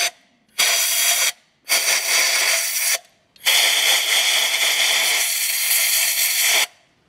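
Compressed-air blow gun hissing in blasts as it blows dirt out of the spark plug wells. It gives three blasts, each starting and stopping sharply: a short one, a slightly longer one, then a steady one of about three seconds.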